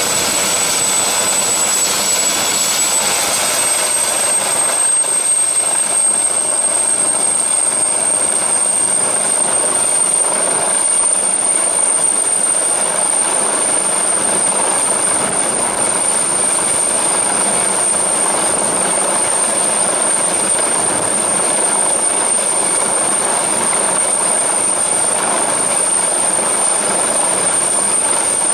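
Helicopter lifting off a helideck into a low hover: steady rotor and turbine noise with a high, piercing turbine whine that rises slightly in pitch about three to four seconds in and then holds.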